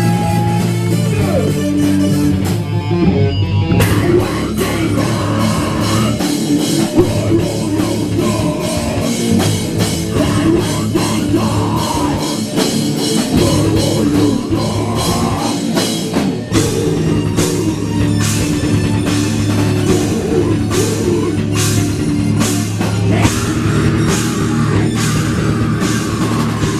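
Live metal/post-hardcore band playing loud: distorted electric guitars and bass over a pounding drum kit, with a singer's vocals over the top.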